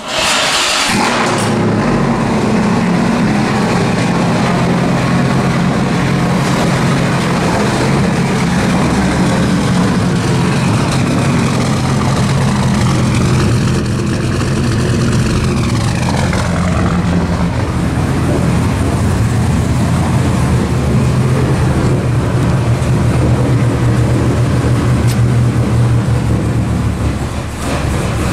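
Turbocharged 2004 Dodge Ram SRT-10's V10 engine idling steadily through its twin exhaust tips.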